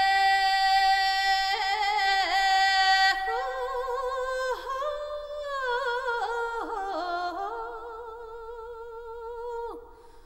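Music: a solo voice singing unaccompanied, holding long notes with wavering ornaments that grow busier in the second half. It ends on a falling slide and stops just before the end.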